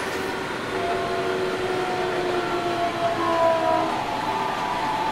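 Sendai Subway 1000N-series train running, heard from inside the car: a steady rumble of wheels on the rails with several whining tones from the traction motors that swell around the middle.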